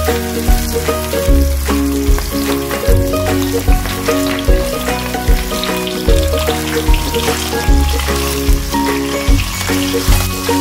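Background music with a steady beat, over hito (catfish) pieces frying in hot oil in a pan, sizzling.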